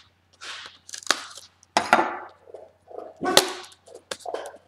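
Cardboard box and packaging of a makeup palette being handled and opened: a series of irregular rustles, scrapes and sharp cracks.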